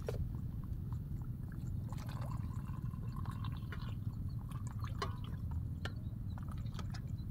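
Coffee poured from a stainless steel thermos flask into a plastic cup, the stream filling the cup from about two seconds in until about four and a half seconds, followed by a few light clicks.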